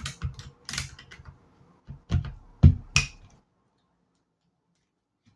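Keycaps being pulled off and pressed onto a Keychron K10 Pro mechanical keyboard: a run of sharp plastic clicks, then a few louder knocks about two to three seconds in.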